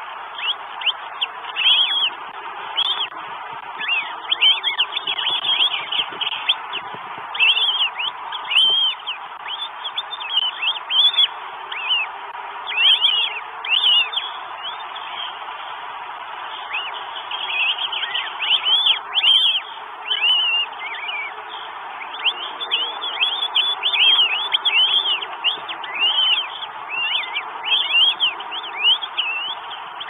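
Birds calling: many short chirps, each rising and falling, come in quick clusters over a steady hiss.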